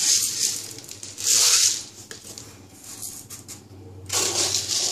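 Dry split biuli dal (urad lentils) poured from a plastic jar into a ceramic mug, rattling and hissing in a few short pours.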